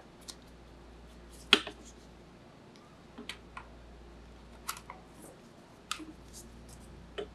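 Gloved hands handling a Focusrite Scarlett Solo audio interface and plugging an XLR cable into its front input: scattered short plastic-and-metal clicks and taps, the sharpest about one and a half seconds in, over a faint low hum.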